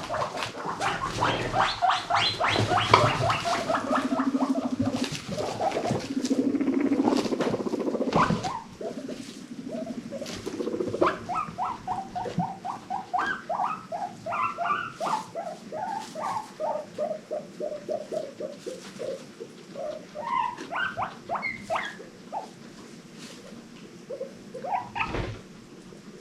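Guinea pigs squeaking in long runs of short, rapid squeaks, with a low buzzing purr twice in the first several seconds. Later the squeaks come about three or four a second and slowly drop in pitch. There is a single knock near the end.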